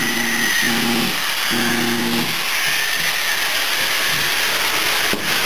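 Steam locomotive venting steam: a loud, steady hiss. In the first two seconds a low humming tone comes and goes.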